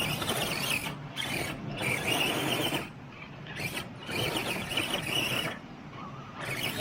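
Radio-controlled rock bouncer trucks' electric motors whining in repeated bursts of throttle, with brief pauses between them.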